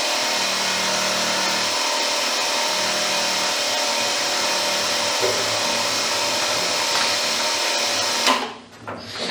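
Milling machine running steadily during a lower-lug cutting pass on a 1911-pattern barrel, then shut off abruptly about eight seconds in, followed by a few sharp clicks.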